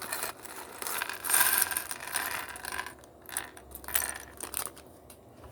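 Small plastic Lego pieces being handled on a table, clicking and rattling against each other, busiest in the first three seconds and quieter after.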